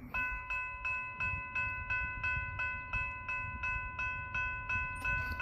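Railroad grade-crossing warning bell starting up and ringing steadily, about three strikes a second, as the crossing gates come down for an approaching train.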